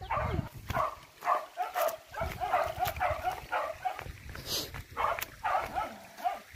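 Hunting dogs barking and yelping in quick succession, several calls a second without a break.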